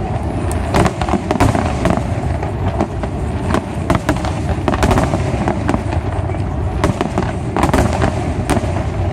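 Aerial fireworks bursting in quick, irregular succession: many sharp bangs and cracks over a continuous low rumble of overlapping explosions.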